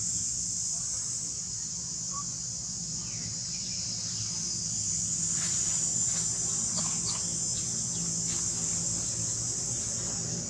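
Steady high-pitched drone of insects, with a low hum beneath and a few faint short clicks and squeaks about halfway through.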